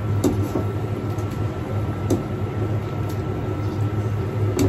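Metal tongs stirring fuki stalks in a small saucepan of heating water, clicking lightly against the pan a few times, over a steady low hum.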